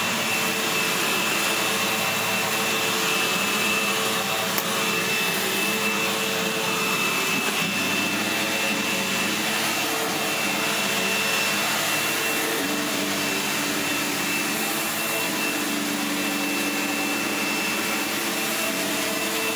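Sebo X7 upright vacuum cleaner running steadily as it is pushed over carpet and a shaggy rug, with a thin, steady high whine over its motor hum.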